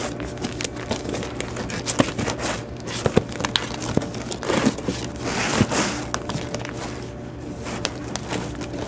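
Plastic comic-book bags and cardboard backing boards rustling, crinkling and clicking as a hand flips quickly through a box of bagged comics, in short irregular bursts with sharp ticks between them.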